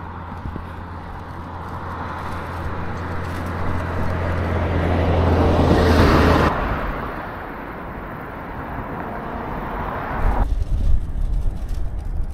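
A road vehicle passing close by: engine hum and tyre noise grow louder to a peak about six seconds in, then fall away quickly. Wind rumbles on the microphone from about ten seconds in.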